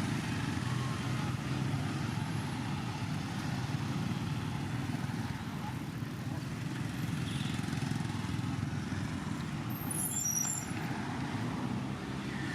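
Steady low rumble of outdoor background noise, with a brief high chirp about ten seconds in.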